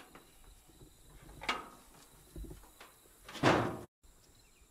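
Hinged, wood-framed solid lid of a chicken tractor being handled and let down, with a knock about a second and a half in and a louder clatter as it closes near the end, cut off suddenly.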